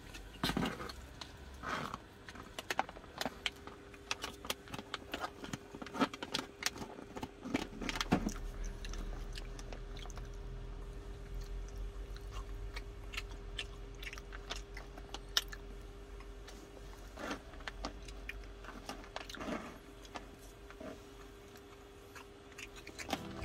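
Someone eating from a foil ration pouch: chewing, with a plastic spoon clicking and scraping against the pouch and the pouch crinkling in short irregular bursts.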